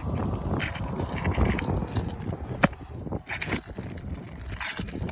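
Asphalt shingles scraping and tearing as one is worked loose and pried out of an old roof, with repeated sharp clicks and knocks of the tool against the shingles.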